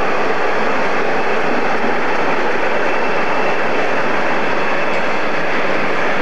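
British Rail Class 47 diesel locomotive, with its Sulzer twelve-cylinder engine, passing at the head of a train. Its engine and wheels make a steady, even noise.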